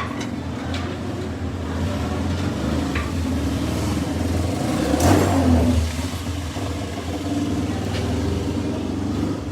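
A vehicle engine running steadily, swelling briefly about halfway through, with a few light clicks over it.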